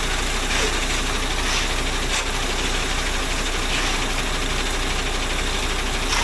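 Concrete mixer truck's diesel engine running steadily while its drum discharges concrete down the chute.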